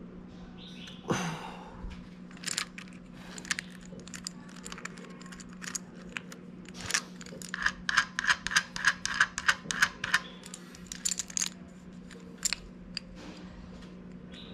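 Metal clicks and clinks of a homemade chain wrench's roller chain and steel handle being handled around a nut held in a vise, with a sliding scrape about a second in and a quick run of even clicks, about five a second, past the middle. A steady low hum runs underneath.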